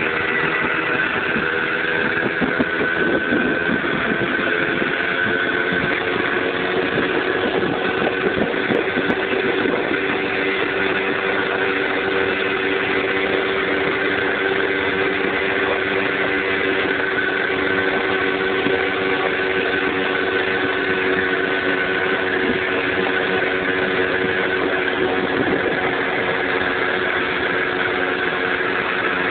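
Small two-stroke moped engine running at a steady cruising speed, with road noise underneath.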